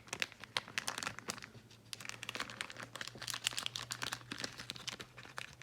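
Plastic trading-card pack bag crinkling with many sharp crackles as it is handled and opened to get the cards out.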